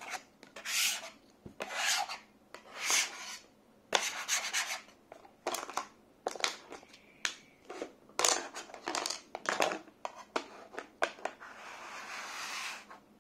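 Stuck Play-Doh being scraped off a desk surface. A dozen or so short, uneven scrapes are followed by one longer, steadier scrape near the end.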